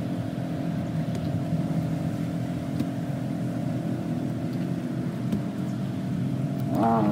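An engine idling steadily. Near the end a louder engine revs up, its pitch rising.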